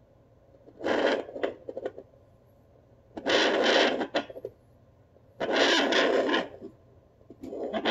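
Handheld fetal doppler's speaker giving bursts of whooshing, static-like noise as it is held on a pregnant dog's belly: four bursts about two seconds apart, with quiet in between.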